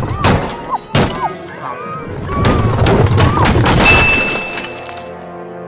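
Cartoon soundtrack: short high-pitched squeaky character voices and sudden crash and thud sound effects over music, with two sharp hits near the start and about a second in, a steady high tone briefly near the end, then a held chord.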